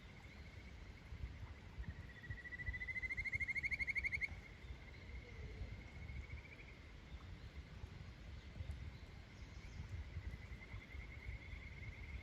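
Kajika frog (Buergeria buergeri) calling: about two seconds in, a loud pulsed trill rises in pitch for about two seconds, and fainter trills follow later. Underneath runs the low steady rush of a clear mountain stream.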